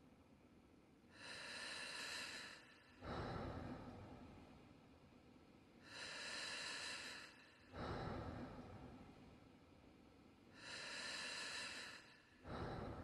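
A person breathing slowly and deeply, long breaths in and out. A full breath comes about every four and a half seconds, each out-breath fading away before the next in-breath.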